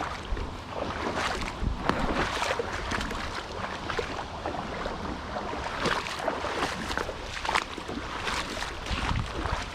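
Water sloshing and splashing irregularly around legs wading through a shallow creek.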